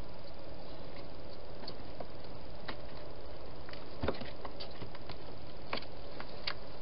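Wild hedgehog at its food bowl in a plastic feeding box, making irregular small clicks and crunches, with one sharper knock about four seconds in, over a steady hiss.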